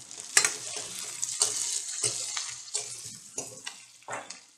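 Sambar onions (shallots) sizzling in hot oil in a kadai as they are sautéed, stirred with a metal ladle that scrapes and knocks against the pan at irregular moments. The sizzle and stirring die away near the end.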